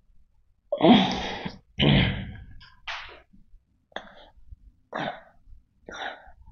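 A man breathing out hard with each push-up: two loud breaths about one and two seconds in, then shorter, fainter puffs about once a second.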